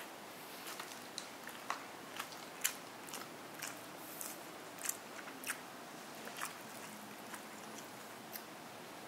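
Crispy batter of a fried chicken chop crackling in sharp, irregular crunches as it is pulled apart by hand.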